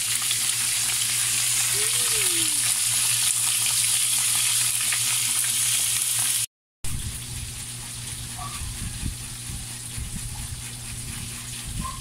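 Bilong-bilong (moonfish) deep-frying in a pan of hot oil: a steady, loud sizzle. About six and a half seconds in, the sound drops out for a moment, then the sizzle goes on quieter with a few low knocks.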